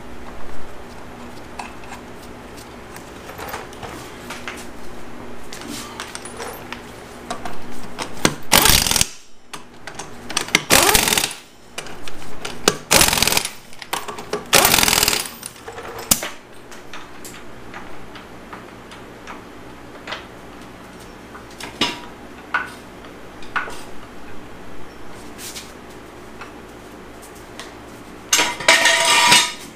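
Impact wrench run in four short bursts between about eight and fifteen seconds in, spinning the lug nuts of a mower's rear wheel, with light tool clicks between. Metal clanks of a steel floor jack near the end.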